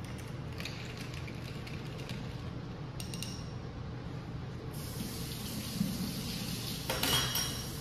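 Light clinks of a long spoon against ice in a glass as a drink is stirred, with one ringing clink about three seconds in. From about five seconds in, a kitchen tap runs with a steady hiss, with a louder clatter near the end.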